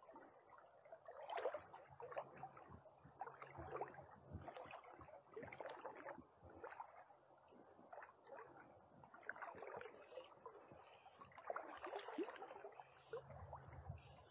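Faint gurgling and splashing of river water in irregular swishes, about one or two a second, as the current swirls close around a wading angler.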